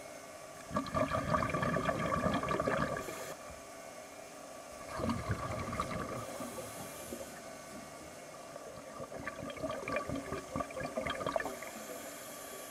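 Scuba diver breathing through a regulator, heard underwater: three bursts of bubbling as exhaled air leaves the regulator, each one to two seconds long, with a short hiss of inhalation between them.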